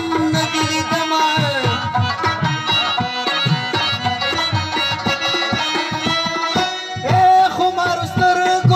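Live Pashto folk music: tabla playing a steady, busy rhythm under a sustained harmonium melody. A sung line falls away about a second and a half in.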